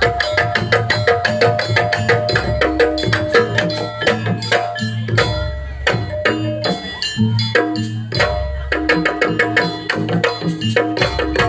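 Live traditional percussion music accompanying a pencak silat dance: hand drums beating a fast, steady rhythm over ringing tuned percussion notes.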